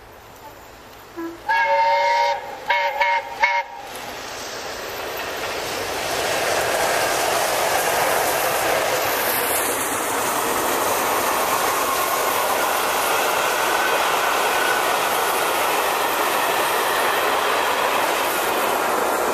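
Steam locomotive whistle from A1 Pacific 60163 Tornado, one longer blast followed by three short toots. Then the noise of the train grows as it approaches, and the coaches run past on the rails, loud and steady to the end.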